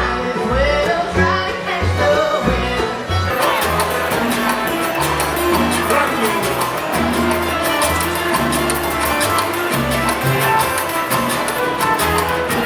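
Upbeat Latin dance music in a salsa style, with a walking bass line; a busy percussion layer comes in about three seconds in and keeps a steady fast rhythm.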